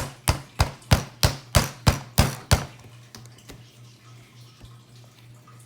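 A lump of Play-Doh being pounded flat on a tabletop: a run of sharp, even thumps about three a second that stops about two and a half seconds in.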